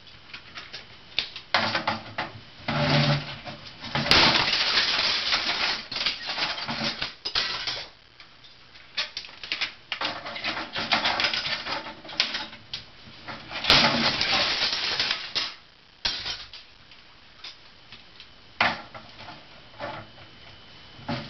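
A hammer repeatedly striking and breaking brittle plastic such as CDs and their cases, in quick irregular blows. Twice, about four seconds in and again near fourteen seconds, a hard hit sets off a long, dense stretch of crunching and crackling as the pieces shatter.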